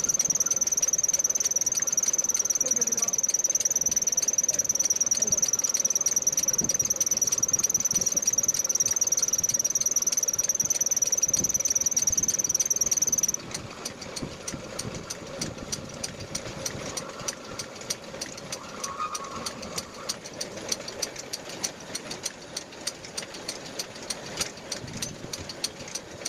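Metal lathe turning a steel rotavator axle: a steady high-pitched squeal stops suddenly about halfway through, leaving the lathe running with fast, even ticking and a low hum.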